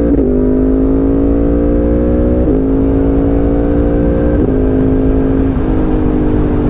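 Yamaha MT-10 crossplane inline-four accelerating hard under full throttle, its pitch climbing through four quick-shifter upshifts. Each shift is a brief stutter as the quick shifter cuts power for an instant, and acceleration resumes with no clutch pull and no throttle lift. Wind rush on the microphone sits under the engine.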